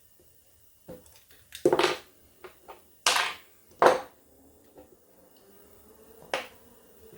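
Clinks and knocks of small brass and steel clock-movement parts being handled and set down on a hard surface, a series of sharp hits, the loudest around two, three and four seconds in, each with a brief ring.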